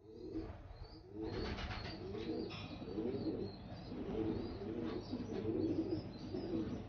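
Racing pigeons cooing: a low, warbling coo repeated over and over, with higher chirps above it.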